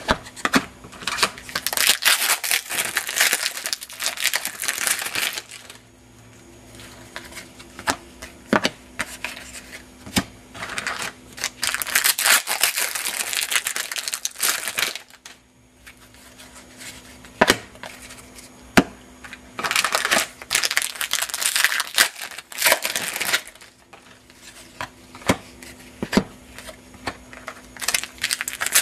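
Foil trading-card pack wrappers being torn open and crinkled in three long bouts, with sharp clicks in between as the cards are handled. A faint steady hum runs underneath.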